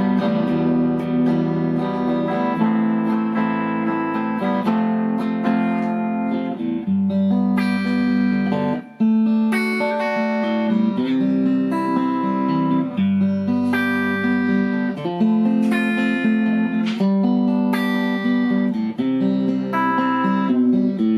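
Fender Stratocaster electric guitar played clean through the normal channel of a Fender Custom Vibrolux Reverb valve amp turned down to about 1.5–2 on the volume: chords ringing and changing every second or two, with a short break about nine seconds in.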